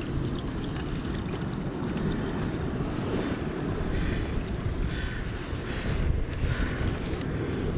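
Wind buffeting the microphone over the steady wash of sea surf on shoreline rocks.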